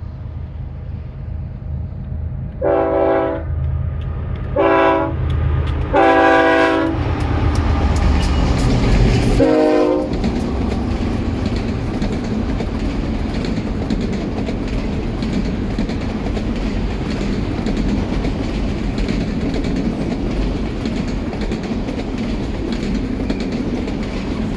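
Freight train led by General Electric diesel locomotives: the multi-chime air horn sounds four blasts, the last one lower in pitch as the lead locomotive goes by, over the engines' rumble. Then a long string of autorack cars rolls past with a steady rumble and clickety-clack of wheels over rail joints.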